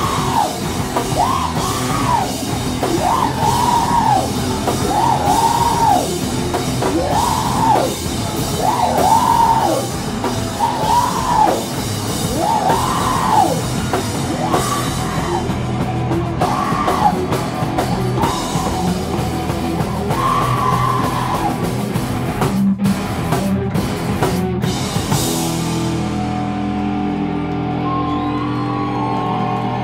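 A heavy rock band playing live, with distorted guitars and drums under a vocalist screaming a short phrase over and over, each yell rising and falling. About three quarters of the way through, the band cuts out abruptly twice, and then only sustained electric guitar notes ring on without drums.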